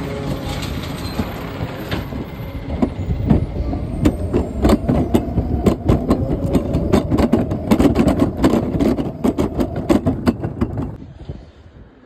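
Automated side-loader garbage truck running, with a dense run of clattering and banging over the engine noise for most of the stretch. The sound drops off abruptly about a second before the end.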